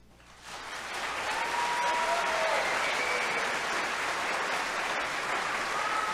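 Audience applause breaking out about half a second in and holding steady, with a few brief high whoops over it, at the end of a solo vocal performance.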